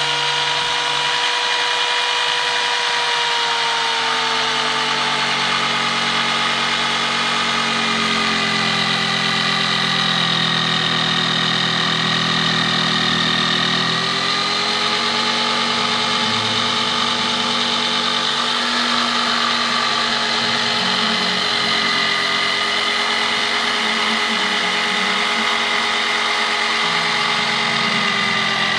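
DeWalt DW333K corded jigsaw running flat out with the pendulum action off, its blade cutting a tight curve through a thick softwood beam. The motor whine holds steady, dropping a little in pitch as the blade loads up partway through.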